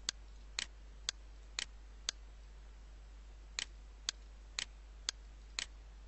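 Light sharp clicks at a regular two per second, some of them doubled, breaking off for about a second and a half after the first five and then resuming at the same pace.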